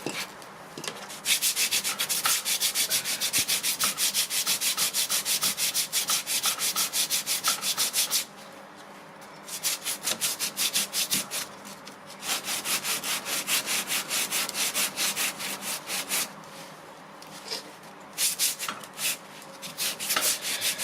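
60-grit sandpaper rubbed by hand over hardened body filler on an MDF door, in quick back-and-forth strokes. The sanding pauses about eight seconds in and again about sixteen seconds in, then starts again.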